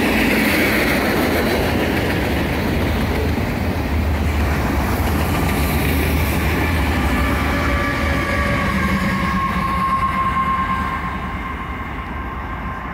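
Freight train passing close by: steel wheels rumbling and clacking under the cars, with the heavier drone of mid-train diesel locomotives going by about halfway through. A thin wheel squeal comes in around then, strongest near the end, as the sound eases off.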